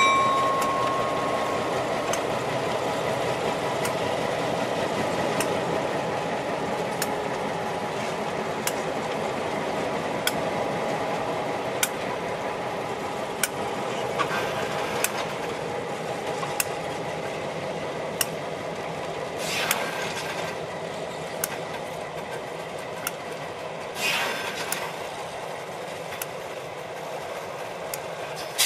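A pair of EMD MP15 diesel switcher locomotives running past at low speed, their engines slowly fading as they move away. Sharp clicks come about every second and a half, and there are two short bursts of noise late on.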